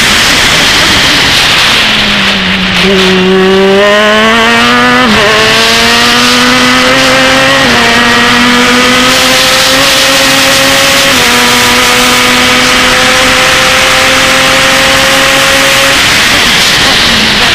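Open-wheel race car's engine recorded onboard: the revs fall for the first few seconds as the car slows for a corner, then climb through the gears with quick upshifts about five, eight and eleven seconds in. The engine holds high revs down the straight and the revs drop again near the end.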